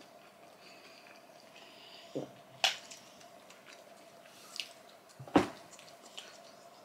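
Close-up eating sounds: chewing and wet mouth noises, with a few sharp clicks, the loudest a little past five seconds in, over a faint steady hum.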